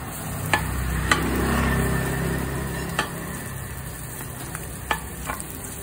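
Bánh xèo batter ladled into a hot pan of shrimp and pork sizzles, swelling about a second in and then easing off. Several sharp clinks of the metal ladle against the pan sound through it.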